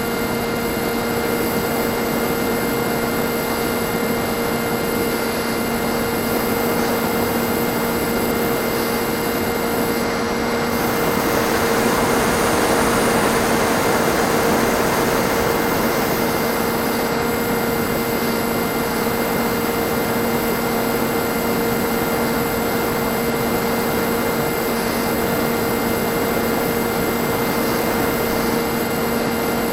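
Electric RC plane in flight: its NTM 2200kv brushless motor and propeller running at a steady pitch over rushing air noise, swelling a little louder about twelve seconds in.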